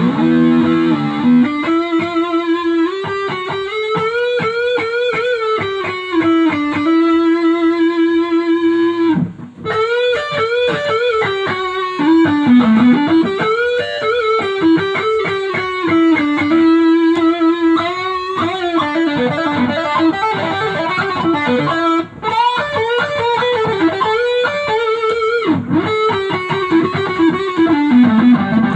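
Electric guitar playing a lead melody, with notes bent and slid up and down between fast runs of picked notes; it pauses briefly about nine seconds in and again around twenty-two seconds.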